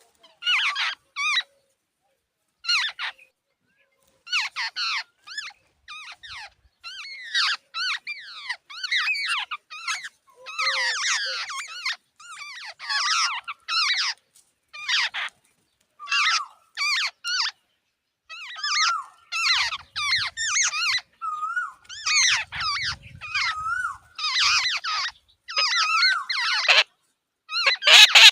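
Jungle babblers calling: a long run of short, harsh, squeaky calls, one after another with brief gaps, coming more thickly in the second half.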